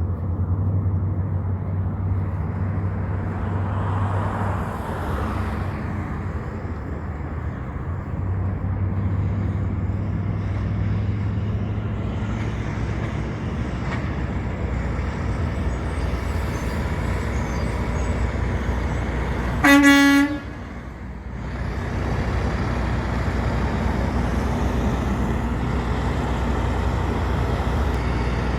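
Heavy truck engines running steadily, with one short horn blast, about a second long, some twenty seconds in; the horn is the loudest sound.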